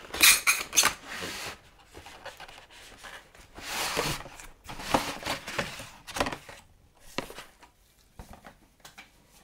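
Packaging and small plastic accessories being handled and unwrapped: irregular bursts of rustling with a few sharp clicks, loudest in the first second.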